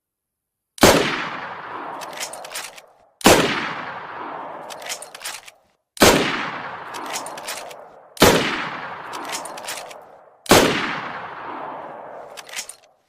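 Sawed-off Mosin-Nagant bolt-action rifle fired five times, about two and a half seconds apart, each loud shot trailing off in a long echo. Each shot is followed about a second and a half later by a quick cluster of metallic clicks as the bolt is worked.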